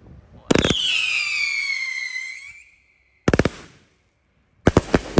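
A Happy Family 'Uncle Sam' 500g 54-shot firework cake firing. A rapid volley of shots about half a second in is followed by a high whistle that falls in pitch and fades over about two seconds. Two more quick volleys of shots come midway and near the end.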